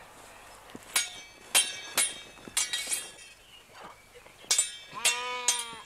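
Steel sword blades clashing in a fencing bout: a series of sharp, ringing metallic clinks, about two a second, the loudest about one and a half seconds in. Near the end a short held call sounds over the clashes.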